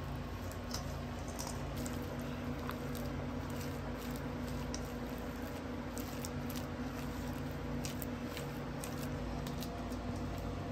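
Spatula mixing a thick cream cheese mixture in a stainless steel bowl: soft squishing with faint scattered clicks, over a steady low hum.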